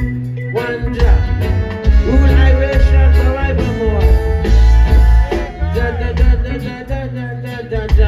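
Live reggae band playing, with a heavy bass line and drums. A lead melody that slides in pitch runs over them through the middle stretch.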